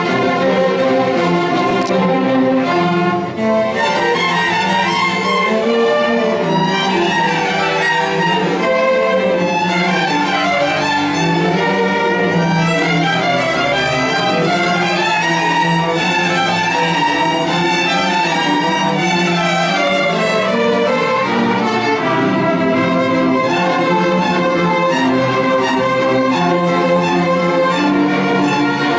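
Youth string orchestra playing live: violins, cellos and double bass bowing together in a moving, continuous passage, with a brief pause about three seconds in.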